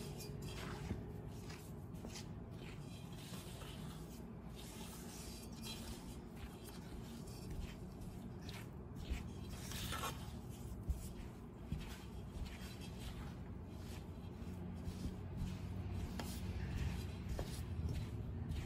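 Silicone spatula scraping and folding thick cookie dough against a stainless steel mixing bowl: faint, irregular rubbing and scraping strokes with a few sharper clicks. This is flour and cocoa being worked into creamed butter and sugar for red velvet cookie dough.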